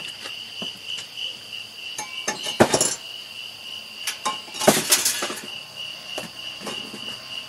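Two clanks of metal on metal, about two seconds apart, as heavy cast-iron engine heads are handled and knocked together. Night insects chirp in a steady pulse underneath.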